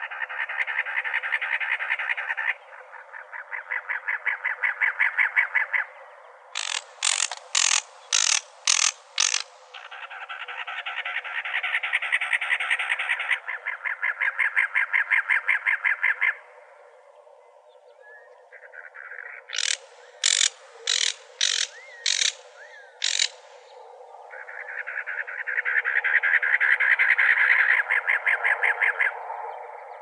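Cactus wren song: runs of harsh, rapid chugging notes, each run lasting a few seconds and repeated again and again. These are broken twice by a short series of about six sharp, evenly spaced notes.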